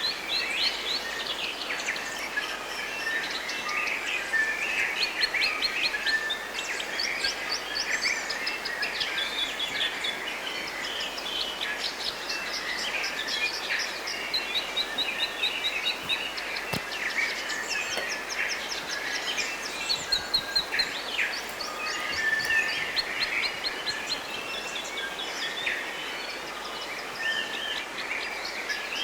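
Forest birds singing in a dense chorus of many overlapping calls, including quick chattering trills, over a steady background hiss.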